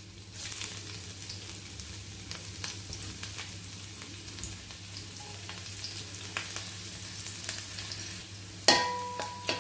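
Chopped garlic and ginger sizzling in hot oil in a wok: a steady crackle with small pops. Near the end the sound suddenly gets louder, with a steady ringing tone under the sizzle.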